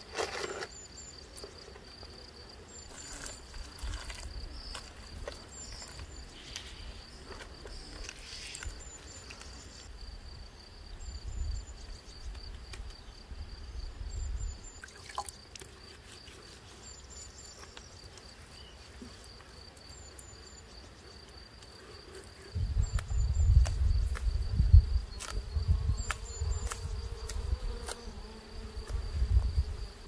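Steady high chirring of insects, with short high chirps in twos and threes every second or two. Soft wet slaps and squelches of clay mud packed by hand come and go in the first two-thirds. About two-thirds of the way in, a low wind rumble on the microphone sets in suddenly and stays.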